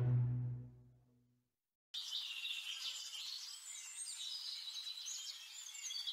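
Background music fading out, then about a second of silence, then birds chirping over a faint steady hiss.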